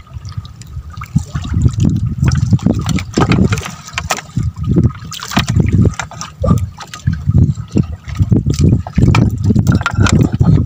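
Water splashing and sloshing in uneven surges, with many short sharp splashes over low, thumping swells.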